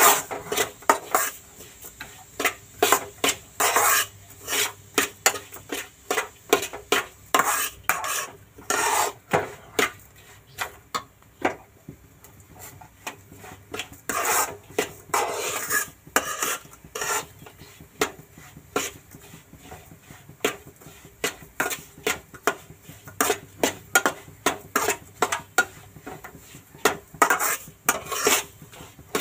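Metal spatula stirring dry semolina in a kadhai: many sharp clinks of the spatula striking the pan, with a few longer scraping sweeps through the grains. This is the rava being dry-roasted for upma.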